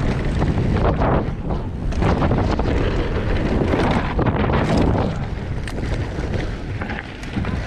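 Wind rushing over the microphone of a mountain bike rider in motion on a dirt trail, with scattered rattling knocks from the bike over rough ground. It eases off a little about five seconds in.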